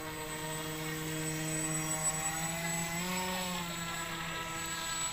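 Radio-controlled model speedboat's motor running over the water, a steady droning tone that rises briefly in pitch about three seconds in, then settles.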